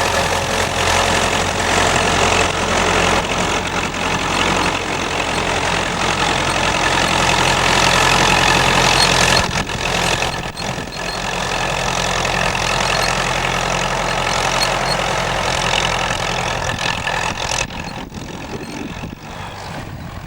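Massey-Ferguson 65 tractor engine running steadily, with a brief dip about halfway through. It grows quieter over the last few seconds.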